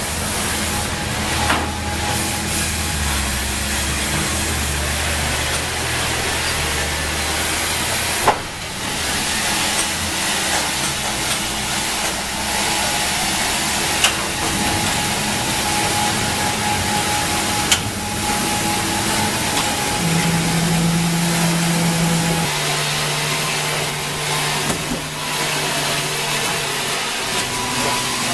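Sawmill machinery running steadily, with motors and conveyors humming and a few sharp knocks of wood or metal. About twenty seconds in a deeper motor tone comes in and drops a little in pitch a couple of seconds later.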